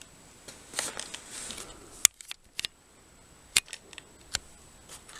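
Cardboard ration box handled close to the microphone: two brief scraping rustles in the first couple of seconds, then a handful of sharp separate clicks and taps.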